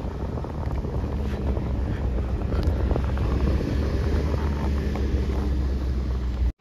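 Wind buffeting a camera microphone mounted outside a moving off-road vehicle, a heavy low rumble mixed with the vehicle's running noise on a dirt track. It cuts off suddenly near the end.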